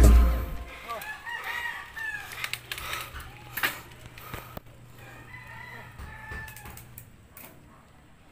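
Rooster crowing twice, with a low steady hum underneath.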